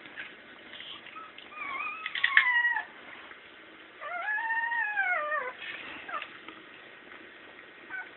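Newborn pit bull puppies whining: two high, thin cries, the second about a second and a half long, rising and then falling in pitch.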